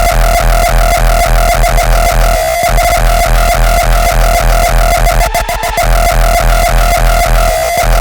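Uptempo hardcore music: a very fast run of heavy kick drums over deep bass, with a synth lead holding a steady tone. The kicks drop out briefly a couple of times.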